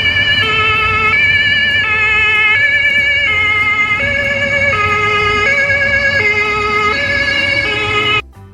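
Toy ambulance's electronic two-tone siren sounding the Japanese-style "pee-poh" pattern, switching between a high and a low note about every 0.7 seconds with a slight warble. It cuts off suddenly near the end.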